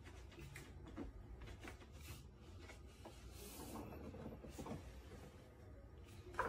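Faint handling noises from work on the all-in-one PC's parts: scattered light clicks, taps and rubbing, with a sharper click near the end.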